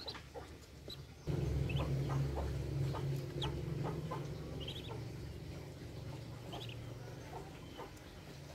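Newly hatched ducklings peeping, short high cheeps scattered through. About a second in a loud, low steady hum comes in and slowly fades.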